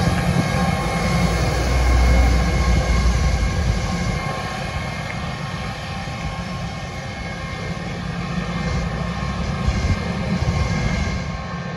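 Boeing 717's two rear-mounted Rolls-Royce BR715 turbofan engines running as the jet rolls away down the runway: a steady turbine whine over a low rumble, loudest about two seconds in and then slowly fading.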